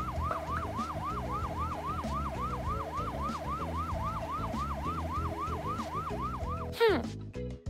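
Cartoon fire truck siren in a fast yelp, the pitch sweeping up and down about four times a second. Near the end it glides down in pitch and stops, and light music comes in.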